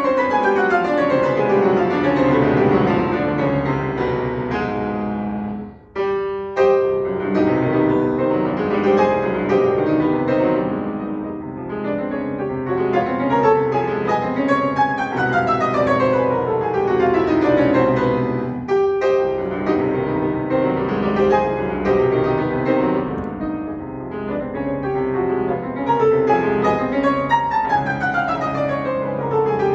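Bösendorfer grand piano played solo, loud and fast, with sweeping descending runs. There are two short breaks, about six and nineteen seconds in.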